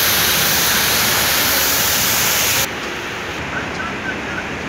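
Heavy rain pouring down, a dense steady hiss. About two and a half seconds in it drops suddenly to a softer, duller rain sound.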